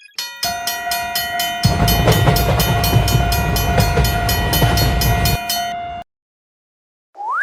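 Cartoon railway-crossing sound effects: a crossing warning bell clanging rapidly and evenly, joined for about four seconds by the low rumble of a train passing. Everything cuts off sharply about six seconds in, and a short rising swoop follows near the end.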